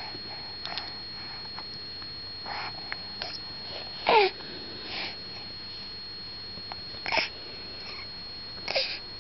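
Five-month-old baby making several short breathy vocal sounds and squeaks while sucking his fingers, the loudest about four seconds in, sliding down in pitch.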